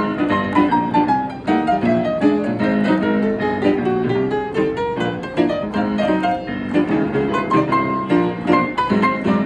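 Upright piano played four-hands by two pianists: a dense, continuous stream of chords and fast notes, with a melody line that steps down over the first few seconds and then climbs again.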